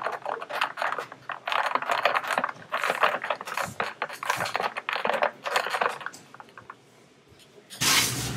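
Metal spoon stirring a drink in a glass, clinking quickly and repeatedly against the side; the clinking stops about six seconds in. Just before the end a louder steady rushing noise begins.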